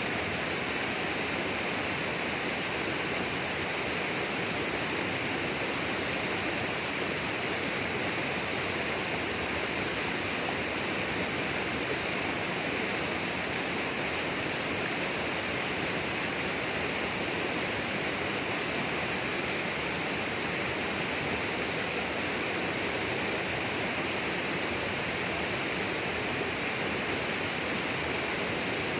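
Flowing water rushing steadily at an even level, with a bright hiss.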